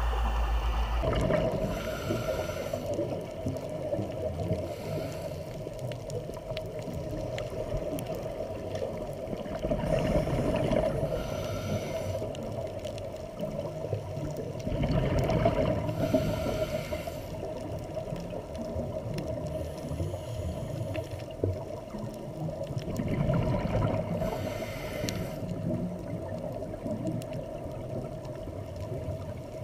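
Scuba diver breathing through a regulator underwater: a hiss on each inhale and a gurgling rush of exhaled bubbles, repeating every few seconds over a steady hum.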